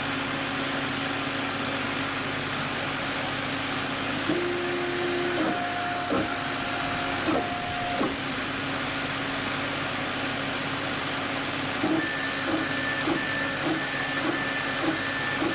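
50 W CO2 laser engraver running with a steady mechanical hum. About midway the head's stepper motors give a few short stepped tones, and in the last few seconds a regular pulse about twice a second as the laser head scans back and forth across the plate.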